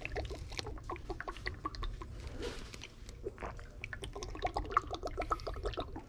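Handling noise from a phone held in the hand: irregular small clicks, taps and rubbing of fingers against the phone near its microphone.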